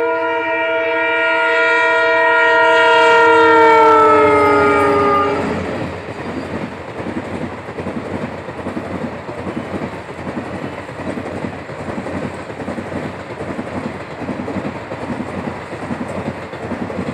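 Locomotive horn of an Indian Railways passenger train sounding for about five seconds, its pitch sliding down near the end as the engine passes close by. The coaches then roll past with a steady rumble and a rhythmic clickety-clack of wheels on the track.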